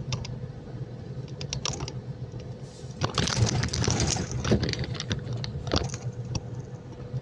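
Inside a truck cab: the engine's steady low drone, with irregular clicks and rattles over it that are busiest from about three to five seconds in.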